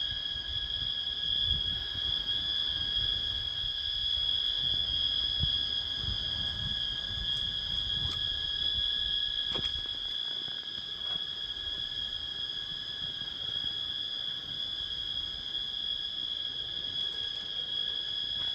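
Forest insects singing in a steady, unbroken high-pitched drone, with a low rumble underneath in the first half.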